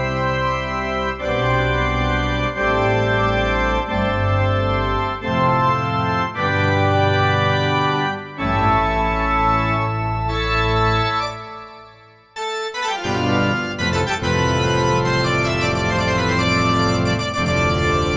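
KORG NAUTILUS synthesizer playing chords in one of its Combination presets, with bass notes changing about once a second. Near twelve seconds in, the sound fades almost to nothing and a new, denser preset starts suddenly.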